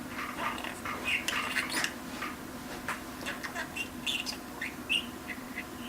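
Budgerigar chattering: quick, scratchy chirps and clicks in rapid succession over a steady low hum.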